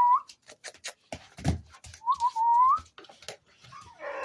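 A person whistling: a short whistle that rises at its end right at the start, and a longer wavering whistle about two seconds in, with light scattered clicks and taps between them.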